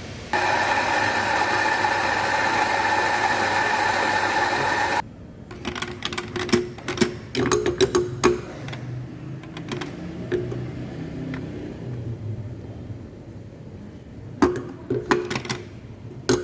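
Espresso bar equipment runs with a loud, steady whirring noise for about five seconds, then stops abruptly. Scattered clicks, clinks and knocks of equipment being handled follow.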